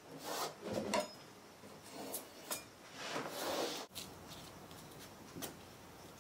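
Blue painter's tape being handled and pressed onto a wall above baseboard: short rustling swishes, with a longer rasp of tape being worked free just before the middle, then a few faint taps.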